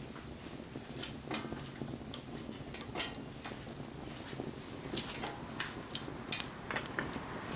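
Wood campfire crackling, with irregular sharp pops and snaps over a low, steady background of the burning fire.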